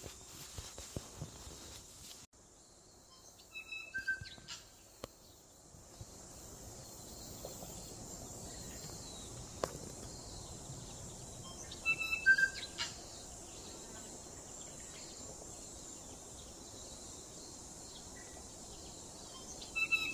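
Tui singing: three short phrases of clear notes mixed with clicks, about eight seconds apart, over a steady high hiss.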